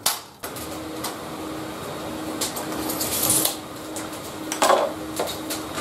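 A steady hum runs under some handling noise as a long white-faced board is moved and set onto a table-saw extension, with a brushing scrape around the middle and a knock near the end.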